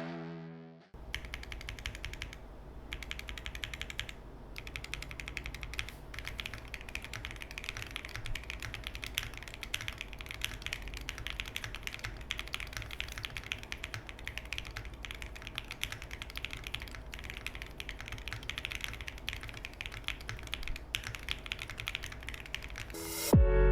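Fast, continuous typing on a Neo65 mechanical keyboard with Keygeek MZ Y2 linear switches and no case foam: a dense stream of key clacks that starts about a second in and stops just before the end.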